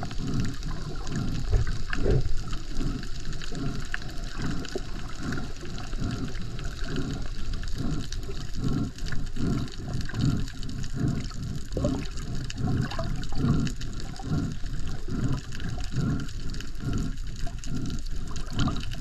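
Muffled water noise picked up by a camera held underwater, with a low pulsing about twice a second from the water moving around the housing as the snorkeler swims.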